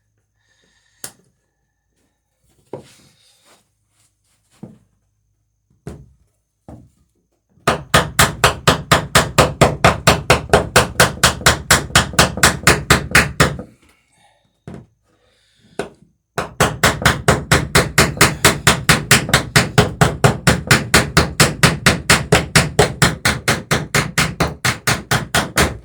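Hammer peening a rivet in a wooden dory's lapped planking: a few scattered light taps, then two long runs of rapid, evenly spaced hammer blows with a short pause between, forming the rivet head.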